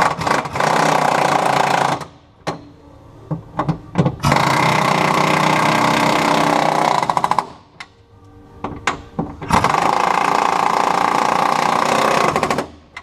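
Cordless impact wrench hammering nuts onto the steering-column bracket studs at the firewall, in three long runs of two to three seconds with short trigger blips between them. The nuts are being driven through rubber undercoating on the studs.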